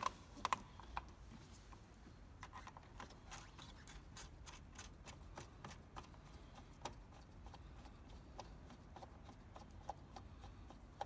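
Faint, irregular clicks and ticks of a screwdriver fastening the plastic cover back onto an engine-bay fuse box, with a couple of sharper clicks in the first second.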